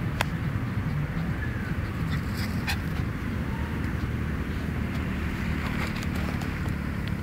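Outdoor ambience in an open grassy field: a steady low rumble, a few sharp clicks, and faint bird chirps.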